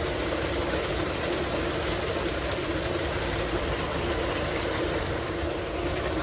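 Tubewell water gushing steadily from a large outlet pipe into a concrete tank, an even rushing noise with no breaks.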